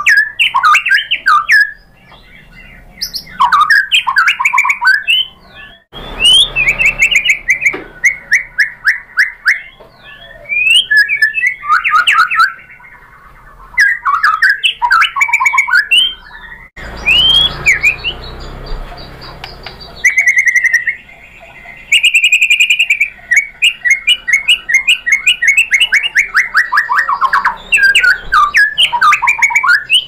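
White-rumped shama (murai batu) in full song: loud, varied phrases of whistles and fast chattering notes, with a long run of quick repeated notes falling in pitch in the second half.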